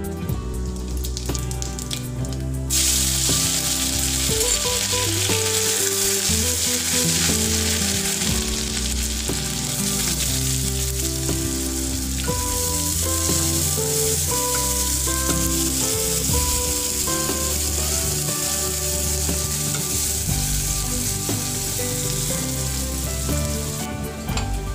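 Cumin seeds and chopped onions frying in hot mustard oil in an aluminium kadai, stirred with a spatula: a steady sizzle that starts suddenly about three seconds in. Background music plays throughout.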